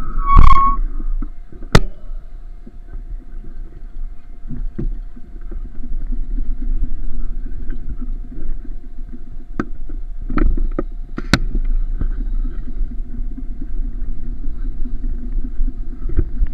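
Steady low rumble of a running vehicle, with a faint steady tone and a few sharp clicks and knocks.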